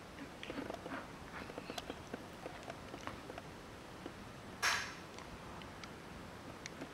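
Soft rustling and small clicks as a golden retriever and a kitten shift against each other on a fabric sofa, with one short breathy puff about two-thirds in, the loudest sound, from the dog's nose near the kitten.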